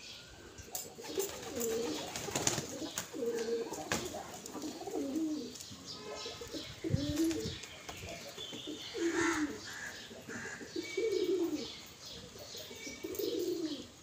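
Domestic pigeons cooing, low calls repeated every second or so, with scattered short clicks between them.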